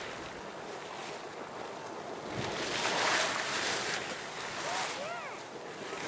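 Steady rushing and splashing of water from Waterfall Geyser, a hot spring in eruption, with wind buffeting the microphone, swelling about halfway through. A few short rising-and-falling chirps near the end.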